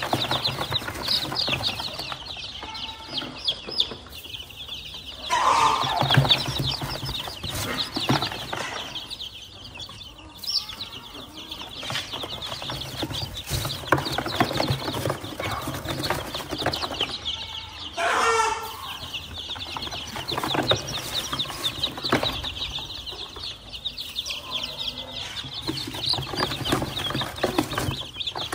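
A box full of newly hatched black-legged chicken chicks peeping continuously in a dense, high chorus. Rustling and scraping come from hands handling them in a styrofoam box, louder about five seconds in and again about eighteen seconds in.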